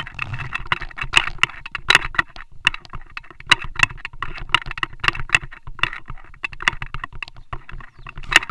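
Handling noise on a handheld Xiaomi Yi action camera: fingers rubbing and tapping its housing, giving rapid irregular clicks and scrapes with a low rumble.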